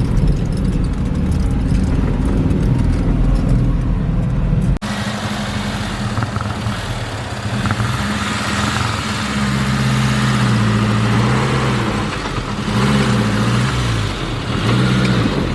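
Suzuki Samurai 4x4's engine running under load off-road. About five seconds in the sound changes abruptly to another stretch where the revs rise and fall repeatedly.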